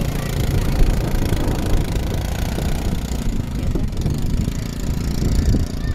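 Small quad bike (ATV) engine running, a steady idle at first that turns rougher as the rider drives off.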